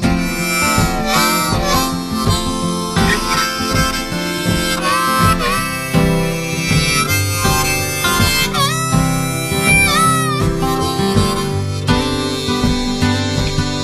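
Instrumental break of a blues-style song: a harmonica solo with bending, sliding notes over guitar backing.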